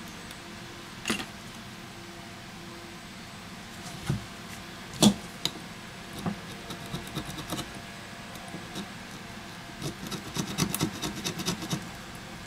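Handling noise from a smartphone being worked on by hand: a few separate sharp clicks and taps of the phone frame, then a quick run of small ticks near the end.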